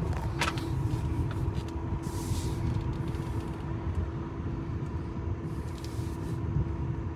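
Low steady rumble inside the cabin of a 1997 Lincoln Town Car as it slows to a stop, with a faint steady hum, a click about half a second in and two brief hisses.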